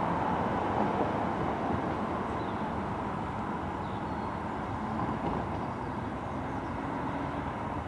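London Underground Central Line 1992-stock trains pulling away on the tracks: a steady rumble of wheels and traction that eases slightly as they recede.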